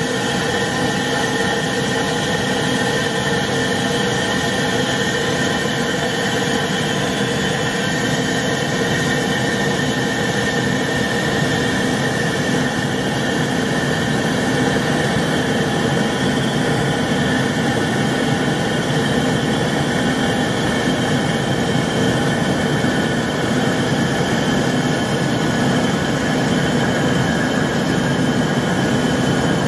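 Steady cabin noise of an Embraer ERJ-145 jet in its climb after takeoff. A constant rush of air mixes with the hum and several steady whines of its two rear-mounted Rolls-Royce AE 3007 turbofans.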